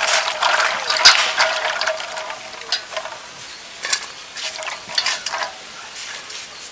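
Jackfruit seeds rubbed and swished by hand in water in a steel bowl, clattering against the metal and splashing. About three seconds in it thins out to a few separate knocks and rattles as handfuls of washed seeds are dropped into a plastic colander.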